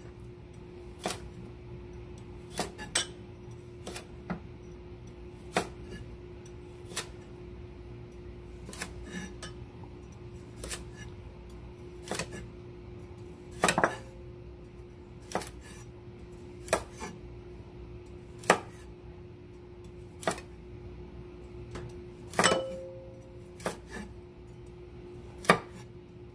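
Chef's knife chopping through carrot and knocking on a wooden cutting board, one sharp knock every second or two at an uneven pace as the carrot is turned between oblique cuts. A faint steady hum runs underneath.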